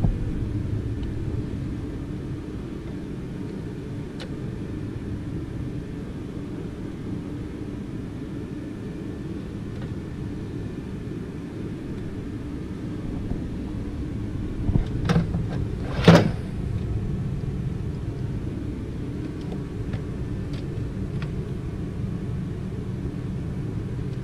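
A steady low rumble, with a few sharp clicks and one louder clank about a quarter of a minute in: metal clutch-pack parts of a John Deere 7320 IVT transmission being handled on the bench.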